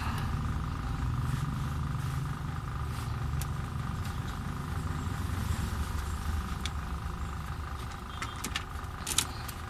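A steady low engine rumble with a faint steady whine above it, and a few light clicks.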